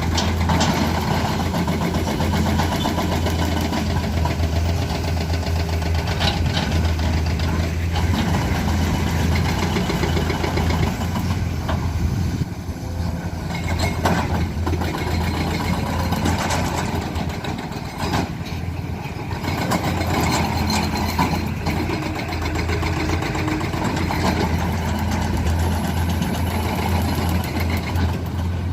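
Heavy diesel engine of construction machinery running steadily with a deep hum, with occasional clanks and knocks, typical of an excavator working on broken asphalt.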